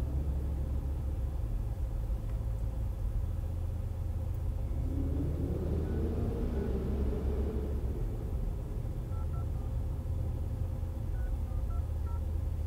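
Steady low rumble inside a car waiting with its engine running, with a faint steady hum over it and a few faint short beeps in the second half.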